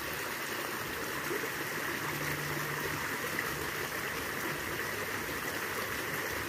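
Shallow creek water running steadily over a fallen log and snags, a small riffle.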